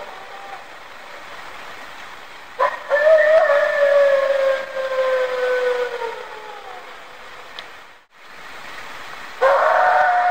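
Long howls that slowly fall in pitch, from a field recording that the uploader believes to be a dogman. One howl starts about two and a half seconds in and lasts about four seconds, and another begins near the end, over a faint steady hiss.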